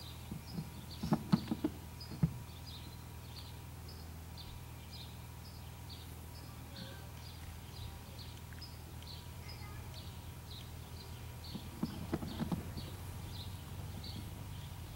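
A lull with a bird chirping in a quick, even series, about three high chirps a second. A few soft knocks sound about a second in and again near twelve seconds, over a low steady hum.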